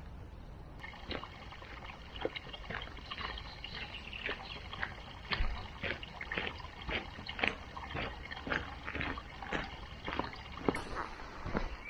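Footsteps of a hiker on a dirt-and-gravel forest track: irregular crisp steps, about three a second, starting about a second in.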